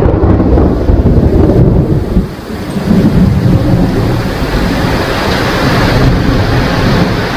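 Steady rain with rolling thunder, a deep rumble under the rain's hiss. The rumble drops away briefly about two seconds in, then builds again.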